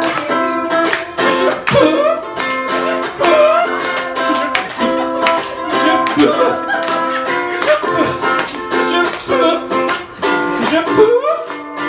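Ukulele strummed in a steady rhythm, chords ringing between the strokes, as an instrumental passage of a sung comic song.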